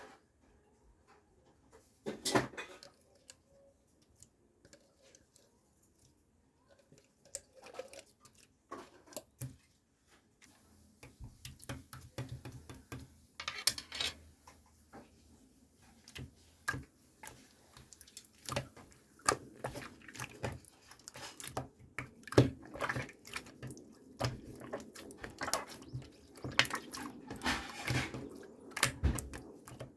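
Clear slime being squished and worked by hand: scattered wet clicks and pops at first, thickening from about a third of the way in into a steady run of squishy crackles.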